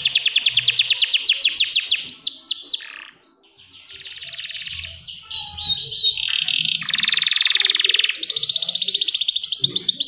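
Domestic canary singing: rapid high trills of repeated notes. The song breaks off briefly about three seconds in, then resumes with sweeping and buzzy notes and another fast trill.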